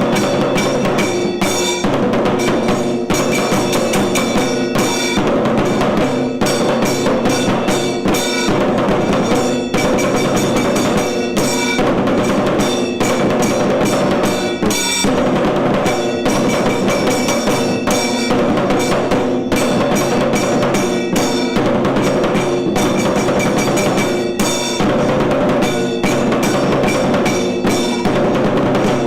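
Tiru Kailaya Vadyam ensemble playing: dense, fast drumming with steady ringing tones held over it, without a break.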